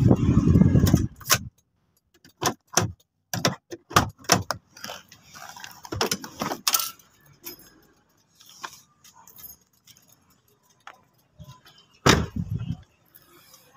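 A low rumble that cuts off about a second and a half in, then a run of sharp clicks, knocks and light jingling from a phone and loose items being handled while someone climbs out of a car. A louder thump comes about twelve seconds in.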